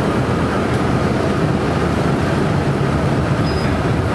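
Steady running noise of an R68 subway car moving at speed, heard from inside the car: wheels on rail and traction motors, an even low rumble.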